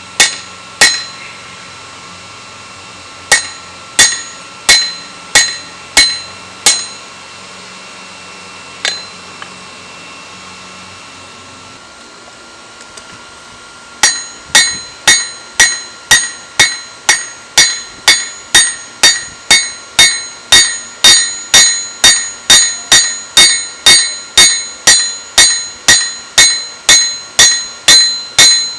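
Hand hammer striking hot steel on an anvil, each blow followed by a bright ring from the anvil. First come a handful of blows, then a pause of several seconds. From about halfway through, a steady run of about two blows a second follows, drawing out the spear head.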